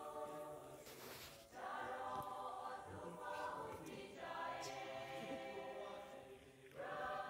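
Faint singing: long held notes sung in about three phrases with short breaks between them.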